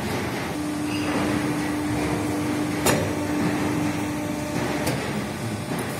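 Hydraulic pipe swaging machine running: a steady hum with a held tone lasting about four seconds, broken by a sharp metallic click about three seconds in and ending with a second, lighter click.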